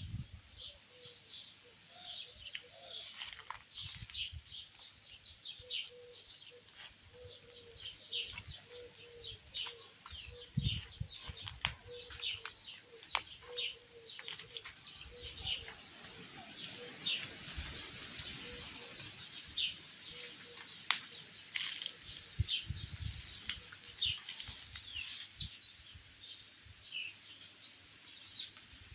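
Small birds chirping outdoors, with many short, quick calls overlapping throughout, a faint repeated low note through the middle, and scattered light knocks and rustles.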